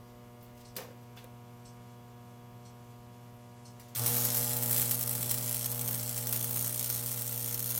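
Steady electrical hum, then about four seconds in a stick welding arc strikes and crackles steadily as the rod lays the finishing weld on the forge body's steel lower plate.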